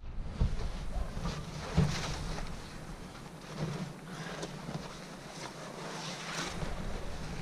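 Canvas tarp rustling and scraping in irregular soft touches as it is pulled by hand over a truck load of broken aerated-concrete blocks, with wind on the microphone.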